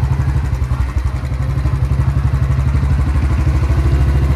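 Motorcycle engine running steadily with an even, rapid pulse as the bike is ridden slowly, heard from the rider's seat.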